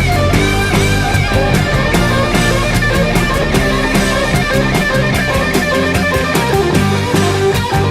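Background music: a driving rock track with electric guitar and a steady beat.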